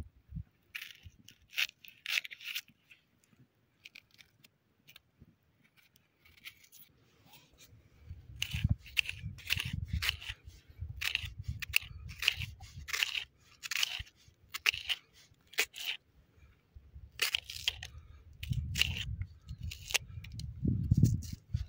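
A knife slicing soft white food directly on bare rock: a run of short crunches and clicks as the blade cuts through and taps and scrapes the stone. The cuts are sparse at first and come thick and fast from about eight seconds in.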